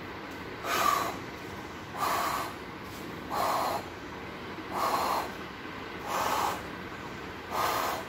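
A person imitating the pansystolic murmur of mitral regurgitation with breath through the mouth: six breathy whooshes, about one every 1.3 seconds, each filling the beat so that no separate lub or dup is heard, as the murmur engulfs the first and second heart sounds.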